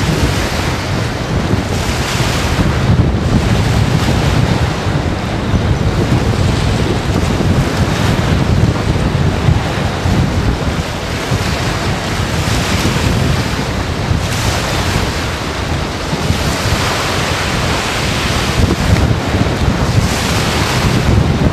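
Strong storm wind buffeting the microphone, a loud rush with a deep rumble that swells and eases in repeated gusts.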